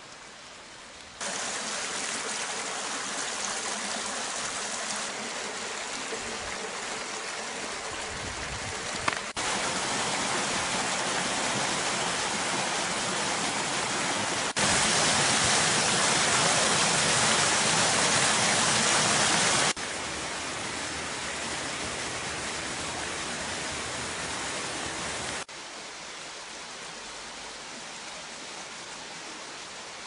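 Running water of a shallow mountain stream running low after a drought, a steady rushing noise that jumps up or down in level at several sudden cuts. It is loudest for about five seconds in the middle.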